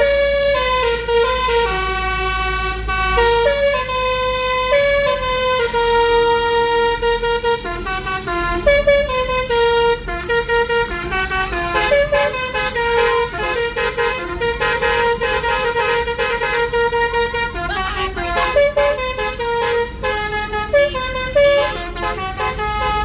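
A bus's Basuri multi-tone "telolet" horn playing a tune of held notes that step up and down in pitch, almost without a break, over a low rumble.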